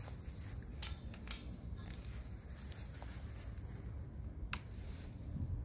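Three sharp clicks as the control-panel switches of a Champion dual-fuel inverter generator are set before starting, over a low steady rumble.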